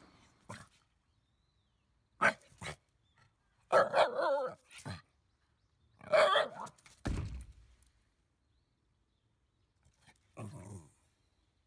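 White Shiba Inu barking in separate bursts: a couple of short barks, then longer pitched yowling barks, of a dog that has had a fright. A dull thump comes about seven seconds in.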